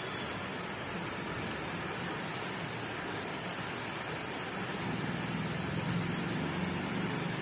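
Heavy rain falling steadily as a dense hiss, with a low rumble coming in about halfway through.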